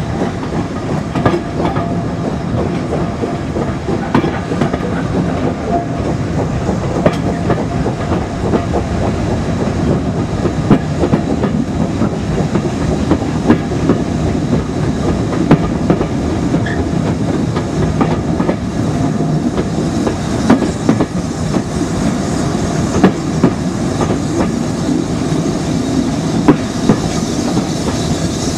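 Coaches of a steam-hauled passenger train running along the track, wheels clicking over rail joints in a steady rolling din, heard close up from an open carriage window.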